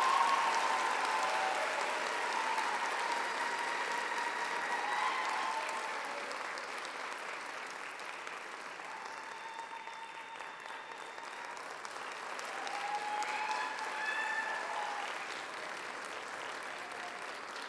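Audience applauding with some cheering voices after the music ends. It is loudest at first, dies down, swells again briefly about two-thirds of the way in, then fades.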